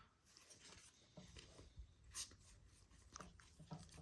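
Faint rubbing and brief swishes of baseball cards being slid one by one off a stack in the hand, with the sharpest swish about two seconds in.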